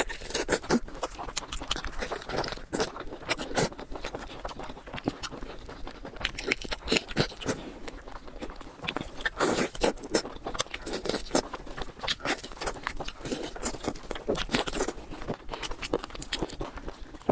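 Close-miked eating: irregular chewing, crunching and wet mouth smacks, with many sharp clicks in a row.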